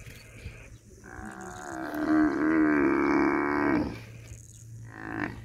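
African buffalo cow bellowing in distress under attack by lionesses: one long moaning call of nearly three seconds, then a short second call near the end.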